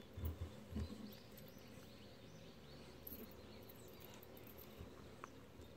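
Faint outdoor ambience with small birds chirping, after a few soft low thumps in the first second.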